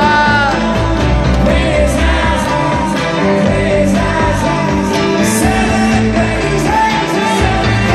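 Live rock music played loudly over a concert PA, heard from within the crowd: a full band with a sung vocal line.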